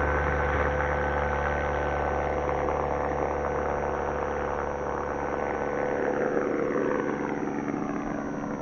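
Electric motor and pusher propeller of a 3D-printed RC model Abrams P-1 Explorer, running under power through the takeoff roll and climb-out as a steady whine. From about six seconds in, the whine falls in pitch and fades as the plane flies away.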